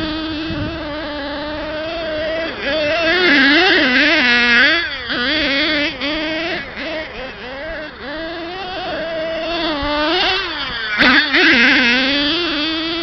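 Small nitro engine of a Kyosho Giga Crusher RC monster truck running hard, its buzzing pitch rising and falling with the throttle, with a louder burst of revs about eleven seconds in.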